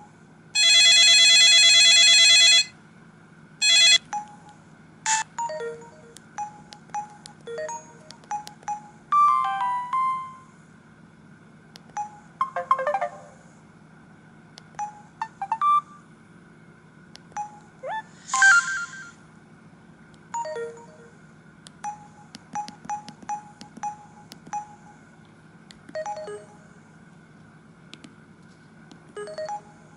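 Samsung SGH-E250i mobile phone playing one of its built-in ringtones through its small speaker. A loud buzzy tone sounds for about two seconds near the start. A sparse electronic melody of short beeping notes follows, with a few quick rising slides.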